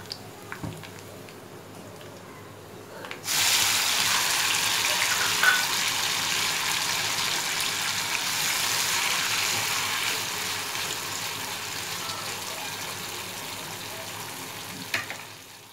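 Chopped tomatoes dropped into a frying pan of hot oil and golden-fried onions, sizzling loudly. The sizzle starts suddenly about three seconds in over a quieter frying and slowly dies down.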